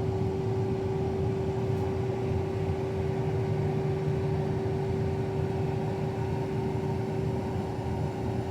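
Steady drone of a farm machine's engine, heard from inside the cab, with a constant humming tone over a low rumble.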